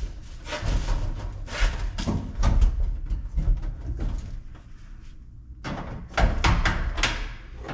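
Scrapes and knocks from hands and a screwdriver working a screw into the sheet-metal front of a stacked dryer, a run of uneven strokes with a pause about two thirds of the way through, then a few stronger ones.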